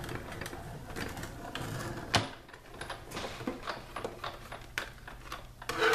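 Sizzix Big Shot die-cutting machine being hand-cranked, its rollers pressing a brick wall embossing folder into cardstock. The embossing cardstock gives irregular clicks and crackles, with a sharper snap about two seconds in.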